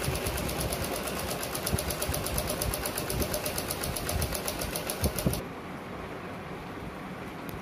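Usha sewing machine stitching, its needle mechanism ticking in a rapid, even rhythm. About five seconds in, the ticking cuts off abruptly and a quieter low noise remains.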